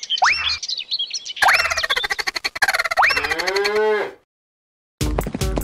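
Cartoon animal sound effects: a cow mooing in several drawn-out calls that glide in pitch, over quick hoof-like clicks. The calls stop about four seconds in, and after a short silence music begins near the end.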